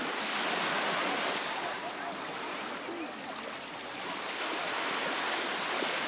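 Sea surf washing onto a beach, surging twice a few seconds apart, with faint voices in the background.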